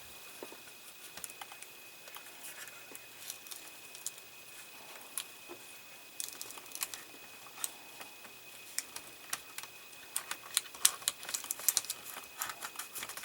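Clear Scotch tape being handled, torn and pressed down over thin wires: light crinkling and small sharp clicks, scattered at first and much busier near the end.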